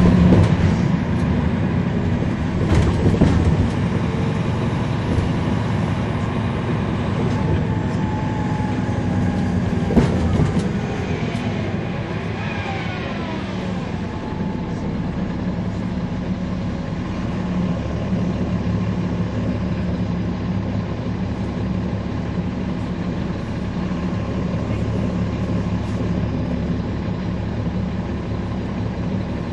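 Caterpillar C13 diesel engine and drivetrain of a NABI 40-SFW transit bus running steadily, heard from inside the bus as a low drone with road rumble. There are a few sharp knocks in the first ten seconds and a brief gliding whine about twelve seconds in.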